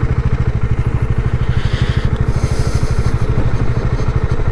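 Bajaj Dominar 400's single-cylinder engine running at low speed, its exhaust giving a fast, even pulse. A brief hiss rises over it about a second and a half in.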